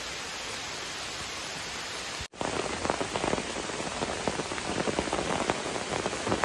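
An even hiss, then after a cut about two seconds in, rain pattering on a tarp overhead, with many separate drops hitting it.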